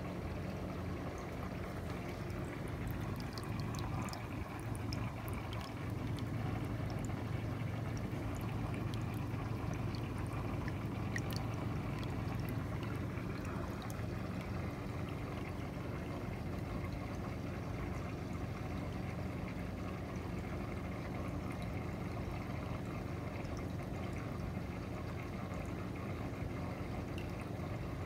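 Small aquarium filter running: a steady trickle of water splashing back into the tank over a low, even hum.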